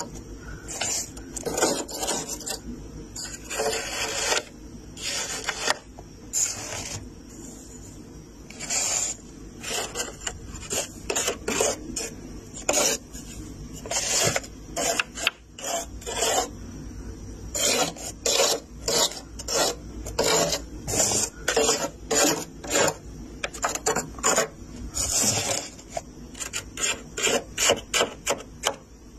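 Thick, flaky freezer frost being scraped off the freezer's inner walls with a hand scraper: repeated rasping scraping strokes, coming faster and more evenly in the second half.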